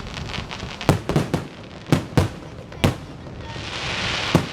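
Fireworks going off: a string of sharp bangs at irregular intervals, some in quick clusters. Near the end a hissing crackle swells and then gives way to one last bang.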